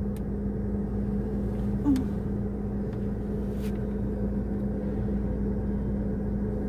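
Steady low rumble and hum of an idling car, heard from inside the cabin, with a couple of short clicks.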